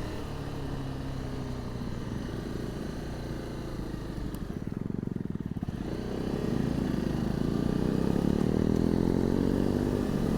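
250 cc single-cylinder motorcycle engine heard from inside the rider's crash helmet. It runs at low revs, eases off about four seconds in, then revs up and gets louder from about six seconds.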